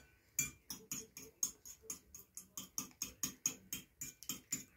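Fork beating egg in a plate, clicking against the plate in a quick, steady rhythm of about five strokes a second.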